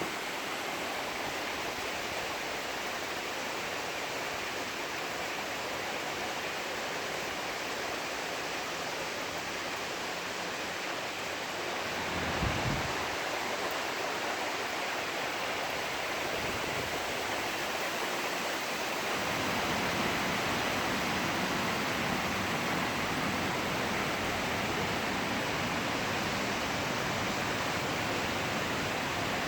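Hail and sleet falling in a steady hiss that grows a little louder about two-thirds of the way through, with one brief low thump near the middle.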